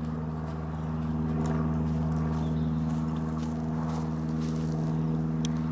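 A steady low mechanical hum with a few faint light ticks over it.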